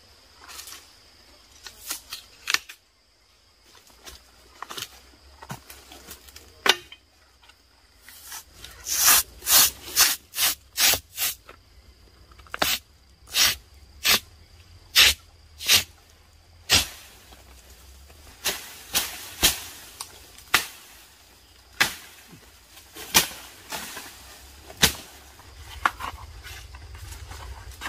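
Bark being stripped from a tree trunk by hand: a run of sharp cracks and snaps at about one to two a second, loudest in the middle and later part.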